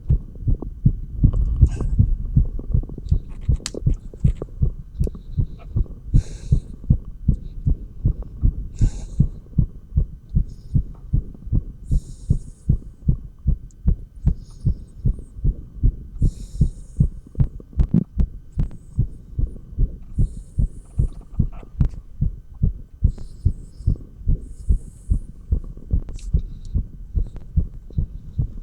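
A human heartbeat heard through a stethoscope held on the chest, beating quickly and evenly in steady low thumps, raised by dumbbell exercise. Short soft hisses come in every few seconds.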